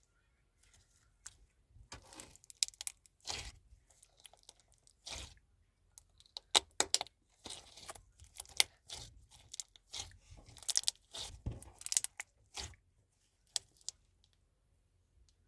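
Slime being squeezed and worked by hand, making an irregular string of crunchy crackles and pops, some in quick clusters.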